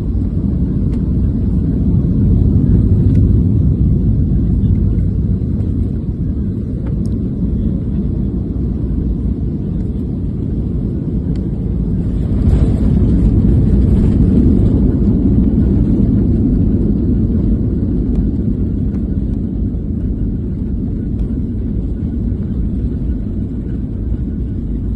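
Passenger airliner landing in gusty wind: a steady low rumble of engine and airflow noise, with a brief louder, brighter swell about twelve seconds in.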